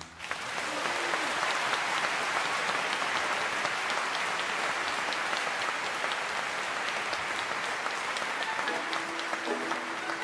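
Theatre audience applauding, a dense, even clapping that starts as the orchestra falls silent. About nine seconds in, the orchestra begins playing again under the applause.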